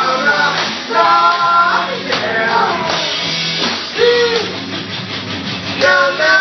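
Rock music playing with a singer holding long notes.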